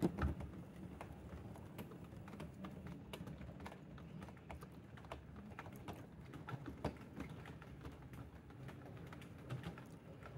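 O gauge model goods train running along the track, a steady low rumble with many light, irregular clicks as the wheels pass over rail joints and points.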